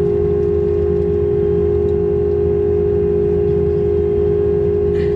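Airliner cabin during taxi: the jet engines run at low power as a steady drone, with one unchanging hum tone running through it.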